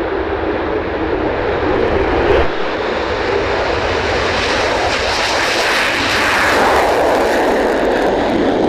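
Jet noise from an F-15 fighter's engines on takeoff: a loud, continuous rushing roar that grows brighter in its upper range in the second half.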